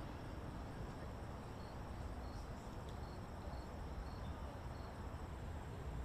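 Insects chirping: short, high chirps repeating at a steady pace over a low, steady background rumble.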